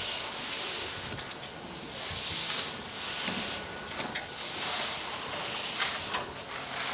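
Rakes and shovels scraping and dragging through wet concrete, with a few sharp knocks of the tools, over a steady hiss.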